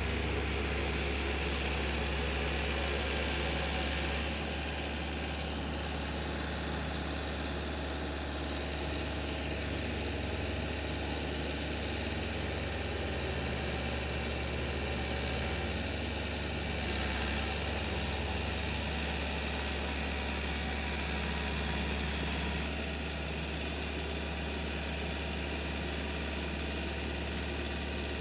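Small farm tractor's engine running steadily, heard from a distance, as it drags an implement through a flooded rice paddy. It is a low, even drone that drops a little in level about four seconds in and again later.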